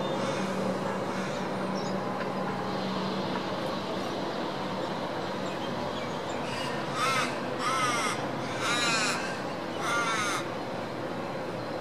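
A raven cawing four times in the second half, each call drawn out for about half a second, over the steady hum of a railway station.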